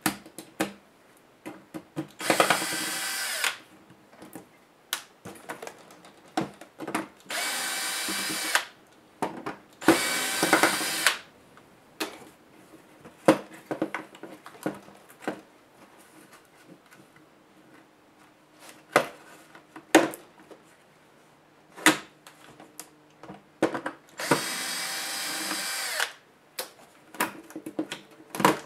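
Small electric screwdriver whirring in four short runs, each a second or so, as it backs screws out of a laptop's case, with sharp plastic clicks and knocks of handling between runs.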